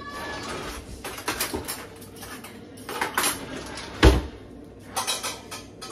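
Kitchen clatter: a spoon and containers clinking and knocking on the counter, several short knocks, with one heavier thump about four seconds in.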